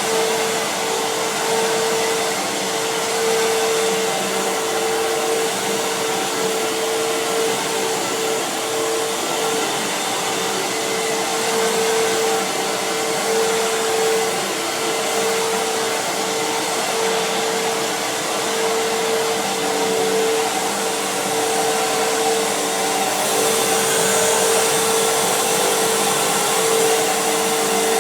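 Fantom Fury vacuum cleaner running steadily, its motor giving a steady whine over the airflow noise. A brighter hiss of air comes in near the end.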